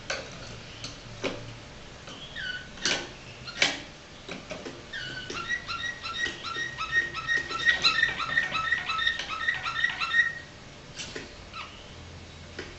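Canary singing a flawta-style song. It opens with a few sharp separate notes, then gives a fast repeated trill of about four notes a second that stops a couple of seconds before the end, followed by one more sharp note.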